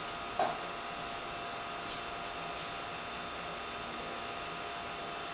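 Steady whirring hum of a motor or fan, with one light click about half a second in.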